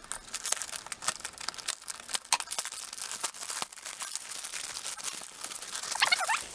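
Packaging being opened by hand: a run of crinkling, tearing and crackling as the parcel and its wrapping are pulled open.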